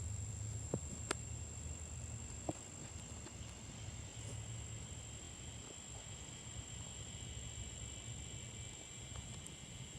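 Steady insect chorus, with a high continuous tone and a fainter band of buzzing that grows a little about three seconds in. There is a low hum under it, and a few soft clicks in the first three seconds.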